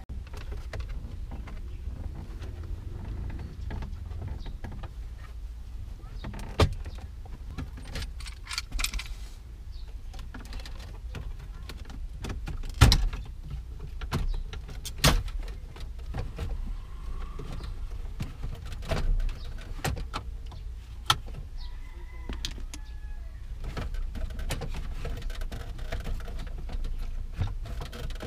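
Plastic dashboard trim of a Toyota Corolla EE90 being pulled and handled by hand: scattered clicks and knocks, the loudest a sharp knock about 13 seconds in and another about 15 seconds in, over a steady low rumble.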